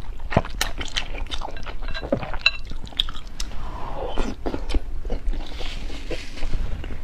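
Close-miked eating sounds: a person chewing and biting food, with many short sharp mouth clicks and smacks.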